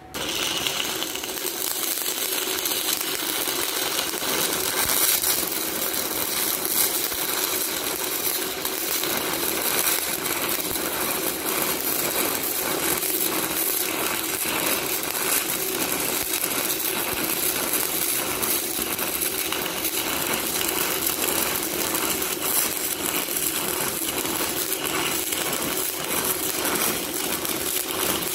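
Stick-welding arc from a 1/8-inch E6010 electrode laying a vertical-up root pass at about 85 amps, reverse polarity: a steady, dense crackling that strikes right at the start.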